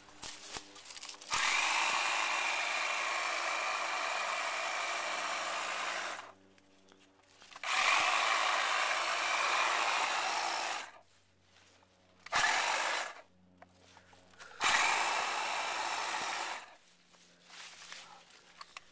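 A chainsaw run in four bursts, the longest about five seconds and one only a second, cutting into the thick woody stalk of a giant weed. Each burst revs up quickly at the start and stops abruptly, with quiet gaps between.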